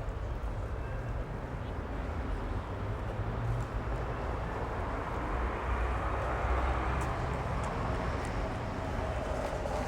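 Street traffic: the steady rumble and tyre hiss of passing cars, swelling gently as a vehicle draws nearer in the second half.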